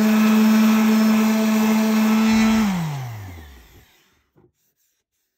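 Bauer random orbital sander running steadily against the wooden stair tread, then switched off about two and a half seconds in, its hum falling in pitch as the pad spins down to a stop.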